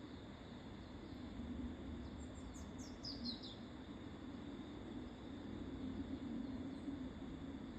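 A small songbird gives one short run of quick, high chirps, each falling in pitch, about two to three seconds in, over a steady low background hiss.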